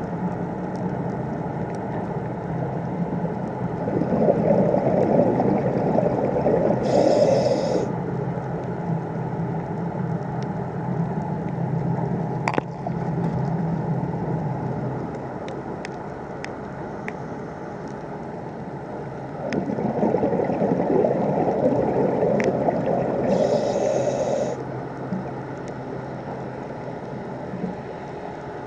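Underwater scuba breathing through a diver's regulator: two long spells of bubbling from exhaled air, each with a short hiss of inhalation near its end, over a steady underwater rush. A single sharp click about halfway through.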